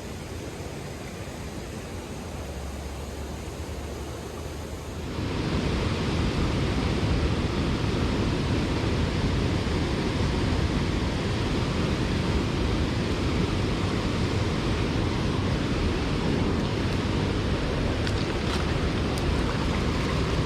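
Fast-flowing stream water rushing steadily over rocks, growing louder and fuller about five seconds in.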